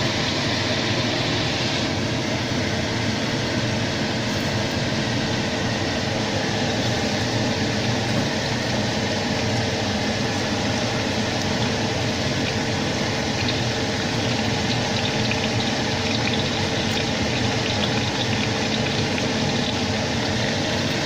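Bean sprouts frying in hot oil with garlic in a pan: a steady sizzle with small crackles, over a constant low hum.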